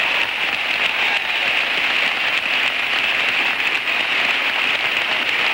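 An audience applauding steadily, a dense even clatter of many hands clapping.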